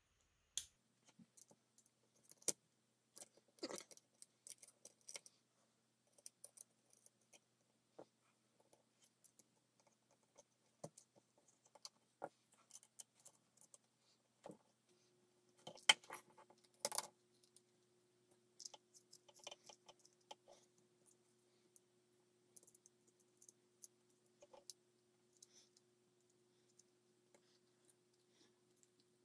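Faint, scattered clicks and clinks of small metal parts and tools being handled and fitted into the plastic frame of a Byrna HD air pistol during reassembly, with a louder flurry of clicks a little past halfway.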